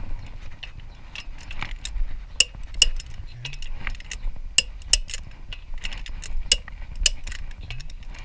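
Click-type torque wrench working lug nuts to 100 ft-lb: a run of light ratchet clicks broken by sharper, ringing metallic clicks, several of them in pairs about half a second apart.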